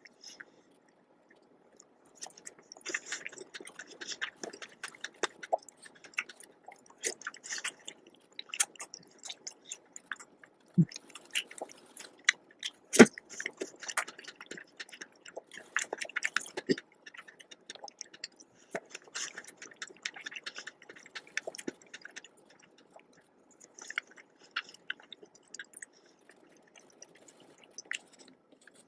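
Close-miked wet chewing and mouth sounds of someone eating a soft dessert of strawberries, whipped cream and marshmallows, with many short sharp clicks and brief pauses between mouthfuls.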